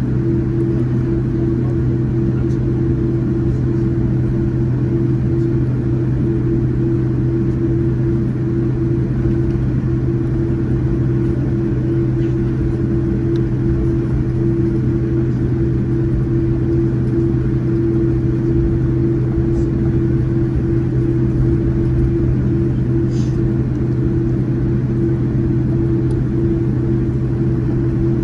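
Steady cabin noise of a Boeing 787-9 with GEnx engines: an even drone with a low hum and a higher steady tone over a rumble, holding one level throughout.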